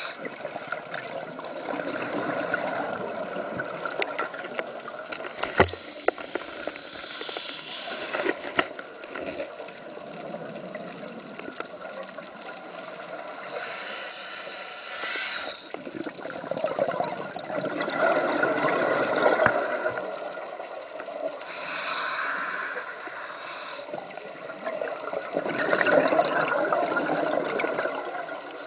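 Scuba diver breathing through a regulator underwater: a hissing inhalation followed by a bubbling exhalation, two clear cycles in the second half. A couple of sharp clicks come about five and eight seconds in.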